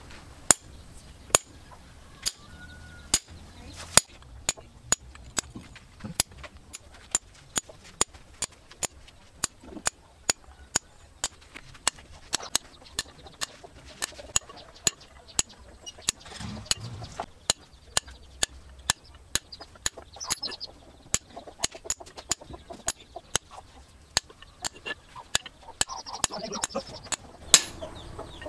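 A hand hammer tapping a small steel chisel, cutting a decorative pattern into a steel axe blade on a stake anvil. The metal strikes are sharp and ring briefly, about two a second and fairly even.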